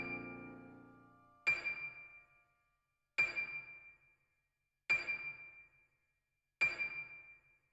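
Background music ending: a piano-like chord fading out, then four short high notes about one and a half seconds apart, each dying away.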